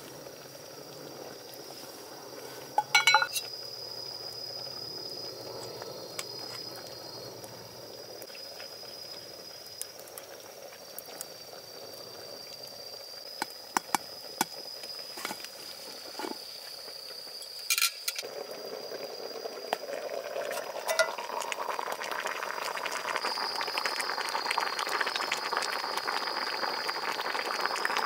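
A few metal clinks of a utensil and lid on a small camp cooking pot, then, from about two-thirds in, a mess tin of meat stew simmering over a wood fire, its bubbling growing louder. A steady high-pitched tone runs underneath throughout.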